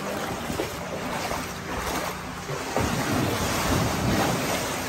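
Hurricane floodwater rushing and splashing, with wind buffeting the microphone.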